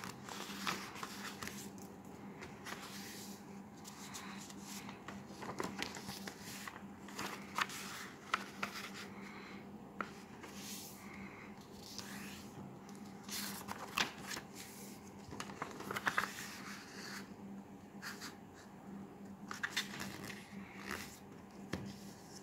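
A sheet of coloured paper being folded and creased by hand: scattered rustles and crisp crackles as the fingers press and run along the folds. A faint steady hum sits underneath.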